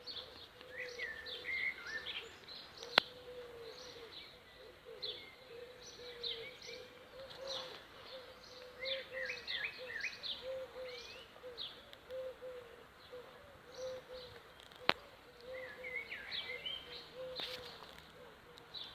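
Honeybee swarm humming with a steady, slightly wavering buzz, while small birds chirp and twitter over it. Two sharp clicks, about three seconds in and again near fifteen seconds.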